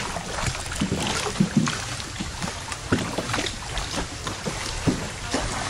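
Small wooden rowboats being rowed through muddy canal water: oars splashing and knocking irregularly over a steady wash of water.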